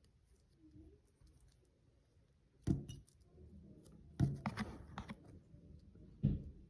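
Squishy fidget toy being handled: a few short, sharp taps and crackles about two and a half, four and six seconds in, with faint rustling between.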